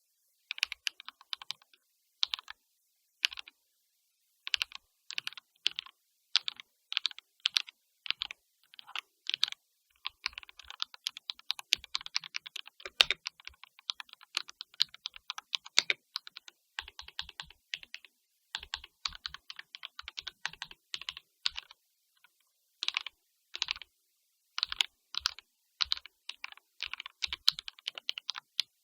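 Typing on a Royal Kludge mechanical keyboard: irregular keystroke clicks with short pauses, speeding up into quicker runs of typing at times.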